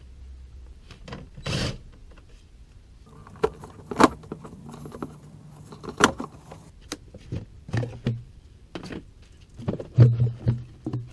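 Scattered clicks, clinks and knocks of hand tools and parts being handled while the air intake comes off: 8mm fasteners being loosened on the truck's intake. The sharpest knocks come about four, six and ten seconds in.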